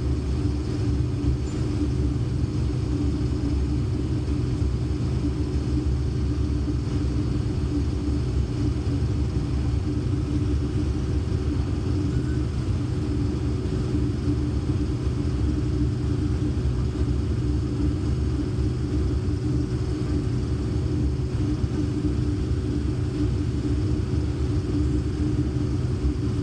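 Combine harvester running steadily while harvesting corn: a constant low drone with a steady hum that does not change.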